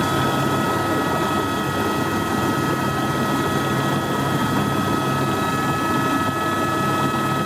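Helicopter in flight: a steady, loud noise of engine and rotor with a constant high whine over it.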